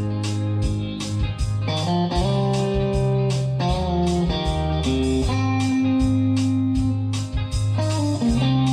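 Background music: a blues-style electric guitar track with bass and a steady beat.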